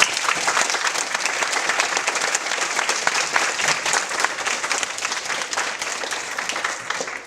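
Audience applauding, a dense patter of many hands clapping that starts suddenly and thins out near the end.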